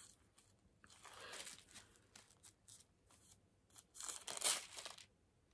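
Pages of a Bible being leafed through: soft rustling turns about a second in, then a louder rustle of pages about four seconds in.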